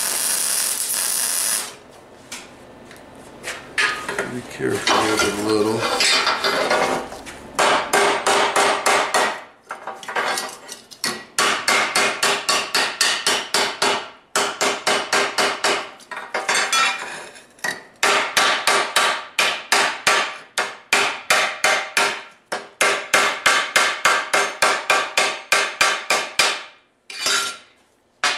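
A MIG welding arc crackles for about two seconds at the start. Then a hammer taps rapidly on the welded steel hand against the steel table, in runs of quick strikes several a second with short pauses between runs.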